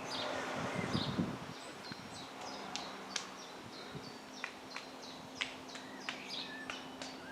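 Small birds chirping, many short high chirps in quick succession, over a faint steady low hum.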